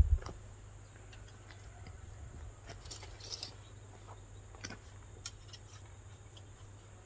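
Light clicks and taps of a recurve bow and arrows being handled as an arrow is nocked, with a louder knock right at the start. Under it run a steady high insect drone and a low wind rumble on the microphone.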